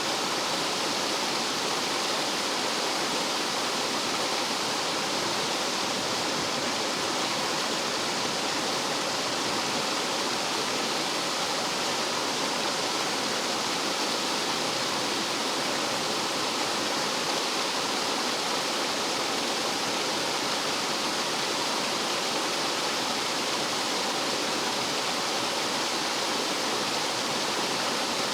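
Rough mountain-stream water tumbling over rocks like a small waterfall: a steady, unbroken rush.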